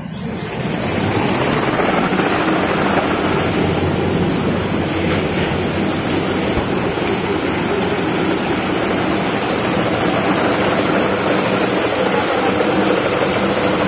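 Toilet-paper rewinding machine running: a steady mechanical hum and whir of its rollers and the tissue web. It grows louder over the first second or so, then holds even.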